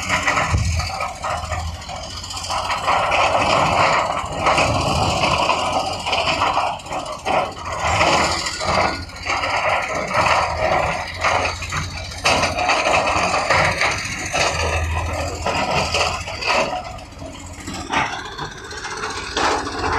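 Heavy construction machinery at work: a diesel engine running, with repeated clanks, rattles and scraping.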